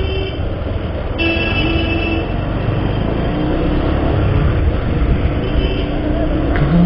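Bajaj Pulsar 150's single-cylinder engine running steadily under the rider, mixed with wind and road noise. About a second in, a vehicle horn sounds for about a second.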